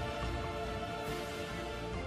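Background music with sustained held notes.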